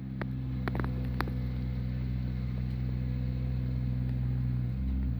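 Engine of the tree-trimming crew's heavy equipment running steadily at a constant speed, with a few sharp clicks or knocks in the first second and a half.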